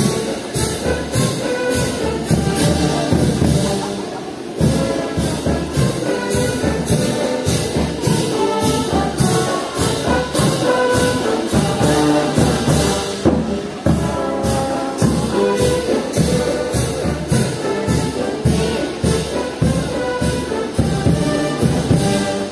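Brass band music with a steady drum beat: trumpets and trombones play held, melodic notes.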